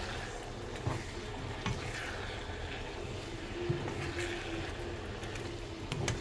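Sheets of fish cake being stir-fried in sauce and turned with a wooden spatula in a coated wok: a steady sizzle with the spatula scraping and a few soft knocks against the pan.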